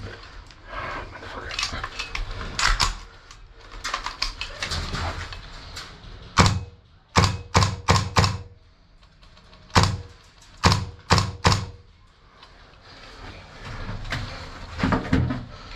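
Airsoft guns firing single shots in two quick volleys of sharp cracks, about five and then four, around the middle. Scuffing and rustling noise comes before and after.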